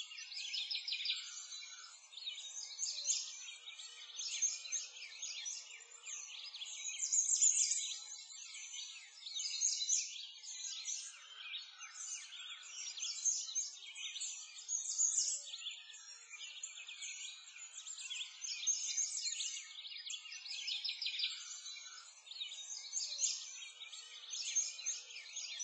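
A chorus of small songbirds chirping and singing, a dense run of high, quick chirps that swells and eases every second or two.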